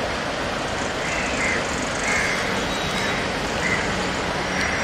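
Steady outdoor road-traffic noise, with short birdcalls repeating every second or so.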